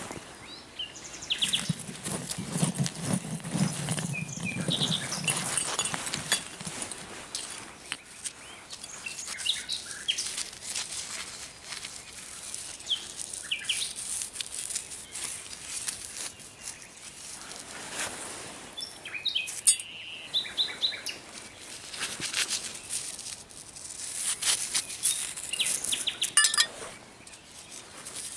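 Gloved hands digging in dry soil among rusty scrap metal: scraping of earth and repeated small clinks and knocks of the metal pieces. A songbird sings in short, scattered phrases over it.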